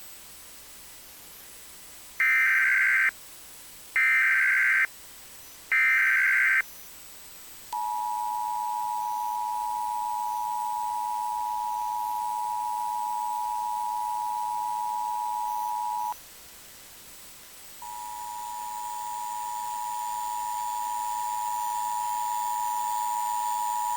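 Emergency Alert System tones: three short, loud warbling SAME data-header bursts about two seconds apart, then the steady two-tone EAS attention signal for about eight seconds. After a pause of a second and a half, the two-tone signal sounds again with extra higher tones, slowly getting louder.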